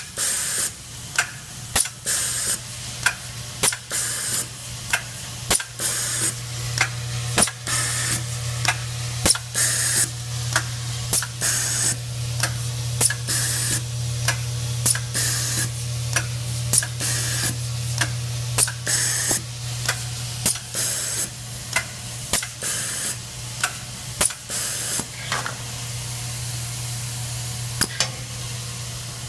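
Automatic screw dispenser running: its vibratory feeder bowl hums steadily while short bursts of hiss, each with a click, come about once a second as it counts out screws. The hissing bursts stop about 25 seconds in, leaving the hum.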